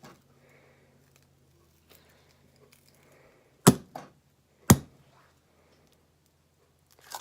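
Two sharp knocks about a second apart: a popsicle mold being rapped against the table to loosen the frozen gummy bear popsicles.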